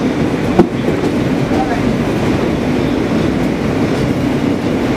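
New York City subway train heard from inside the car, running steadily on elevated track with a continuous rumble of wheels on rails. A single sharp knock comes about half a second in.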